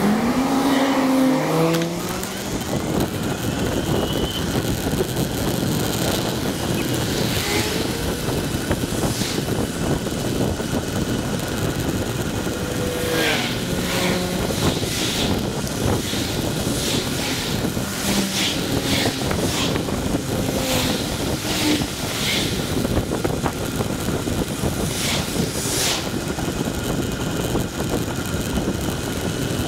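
Riding noise from a bicycle-mounted camera: steady wind and road rumble, with cars passing close by. Scattered short rattles come through over bumps in the road.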